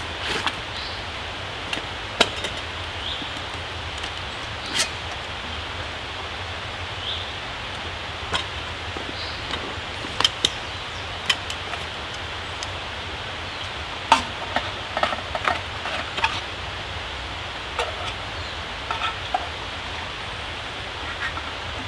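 Small woodland stream running with a steady rushing hiss, with scattered sharp clicks and snaps over it, several in quick succession about halfway through.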